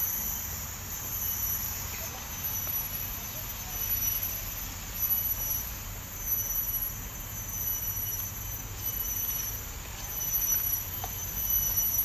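Insects trilling steadily in a high-pitched forest chorus, over an uneven low rumble from the camera microphone being carried along while walking.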